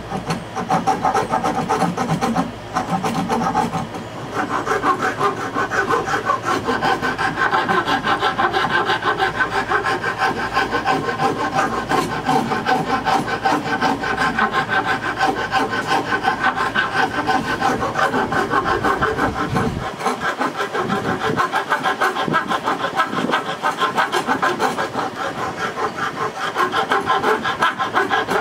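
Hand file scraping back and forth in quick strokes across the edge of an oak board, shaping the strop's handle, with a brief pause about three seconds in.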